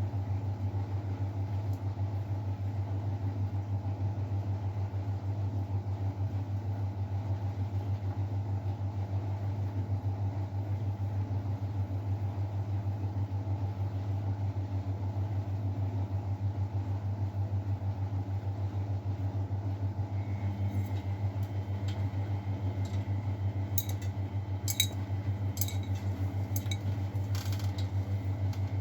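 Miele Novotronic W912 washing machine running with a steady low hum. A faint higher whine joins about two-thirds of the way through, and a few light clicks come near the end.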